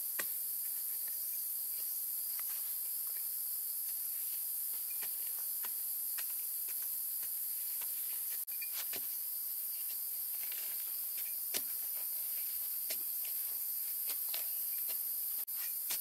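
A steady high-pitched chorus of insects, with scattered short scrapes and knocks of a small shovel digging into soil.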